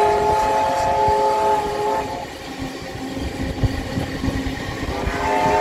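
Steam locomotive chime whistle blowing several notes at once, held for about two seconds, cutting off, then sounding again near the end. Underneath is the steady rumble and knocking of the moving train.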